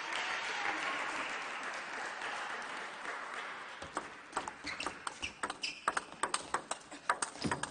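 Applause fading away, then a table tennis rally: the ball clicking off the bats and the table in quick alternation, several sharp ticks a second.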